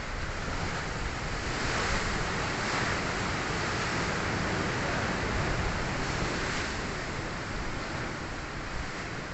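Sea waves breaking and washing against rocks: a steady rush of surf that swells over a few seconds and eases off again, with wind on the microphone.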